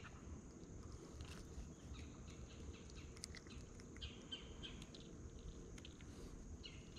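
Near silence: faint outdoor ambience with scattered soft chirps and a few light clicks.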